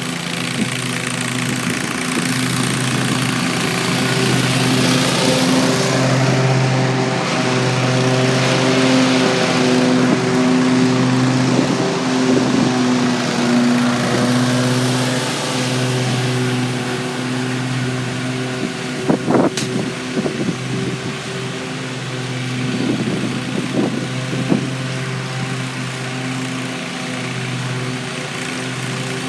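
Toro Grandstand stand-on zero-turn mower's engine running steadily under mowing load, with a few sharp knocks near the middle and again a few seconds later.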